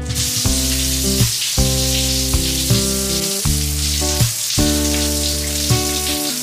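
Shower water spraying steadily onto a tiled floor, a constant hiss, heard under background music.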